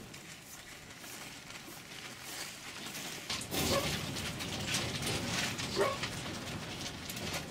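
Farmed foxes in wire cages start giving short barks and yelps about three and a half seconds in. Clicks and rattles sound alongside the calls.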